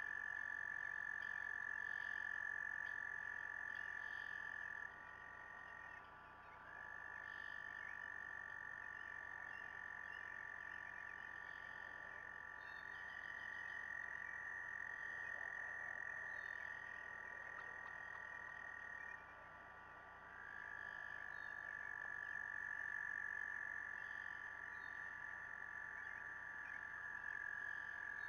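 A chorus of frogs trilling: several long, steady, high trills overlapping, with two short lulls, about five seconds in and again near twenty seconds.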